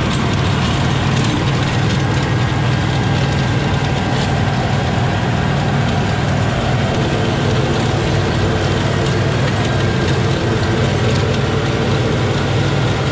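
LS compact tractor's diesel engine running steadily under load, driving a PTO-powered Sicma rotary tiller, with a steady low hum and a few faint mechanical clicks.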